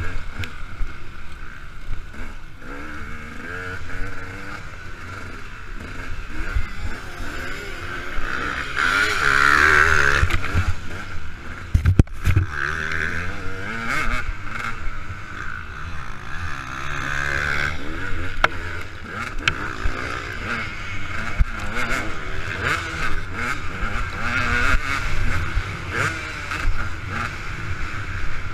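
KTM 200 EXC two-stroke single-cylinder engine running hard on a dirt motocross lap, its revs rising and falling with throttle and gear changes. The engine is loudest during a run about nine seconds in, and there is a sharp knock about twelve seconds in.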